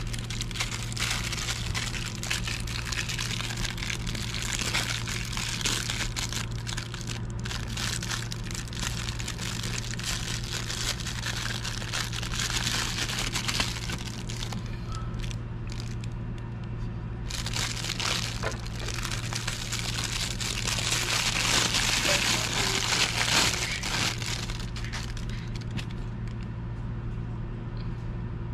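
Thin plastic bag crinkling and rustling as it is handled and pulled off a wristwatch, in bouts with short pauses, loudest a little past the middle.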